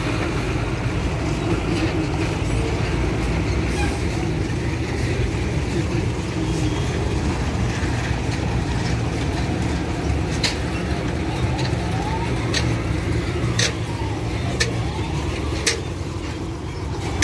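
Diesel engines of buses and trucks running close by, a steady low rumble. Several sharp clicks come in the second half.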